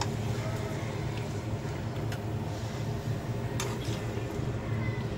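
A spatula turning marinated mutton and onions in a non-stick kadai, with a few sharp knocks and scrapes against the pan, over a steady low hum.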